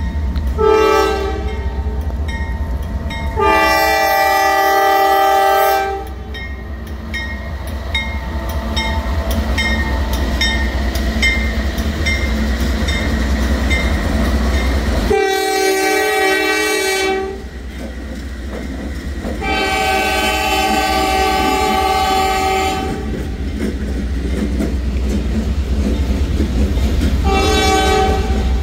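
Diesel locomotive air horn on a Norfolk Southern freight train sounding a series of blasts: a short one, a long one, then after a gap of about nine seconds two long ones and a final short one. Under the horn runs the steady low rumble of the passing locomotives and cars.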